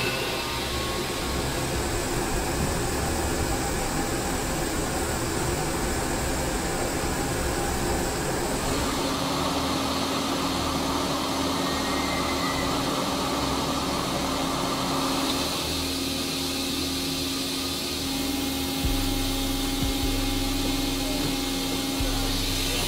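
Steel rolling mill machinery running, a steady industrial hum and whir from the roller conveyors that carry the finished beams. A low steady drone joins partway through, and the noise changes abruptly a few times.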